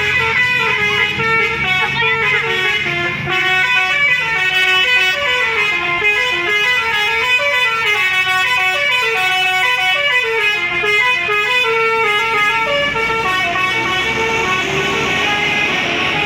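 Indonesian 'telolet basuri' musical bus horn playing a fast melody of short stepped notes, loud and continuous.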